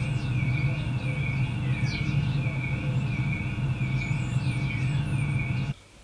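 Outdoor ambience: birds chirping over a steady low hum, with a continuous high warbling tone that wavers evenly up and down. It all cuts off abruptly near the end.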